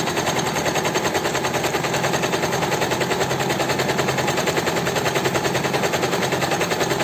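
Usha Janome Dream Stitch electric sewing machine running steadily at speed, its needle mechanism going in rapid, even strokes of about ten a second while it sews a decorative pattern stitch (dial setting G).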